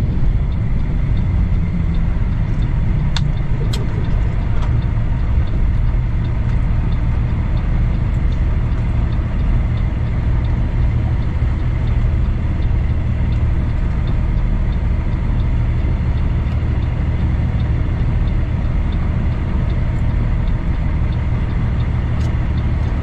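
Heavy truck's diesel engine, the Cummins ISX in a 2008 Kenworth W900L, running steadily as the truck drives slowly, heard from inside the cab as an even low drone. A couple of light clicks come about three seconds in.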